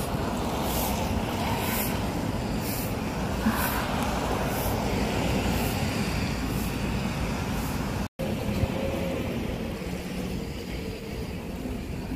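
Steady traffic noise of cars passing on a wet, slushy road, with a regular crunch of footsteps on snow about once a second through the first half. The sound cuts out for an instant about eight seconds in.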